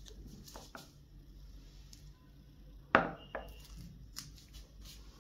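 Glass mug knocked against a hard countertop: a sharp clink about three seconds in, then a lighter clink with a brief ring, after a few soft knocks near the start.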